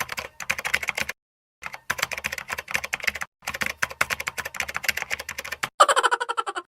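Rapid computer-keyboard typing clicks in three quick runs with brief pauses between them. A short different sound with falling tones comes near the end.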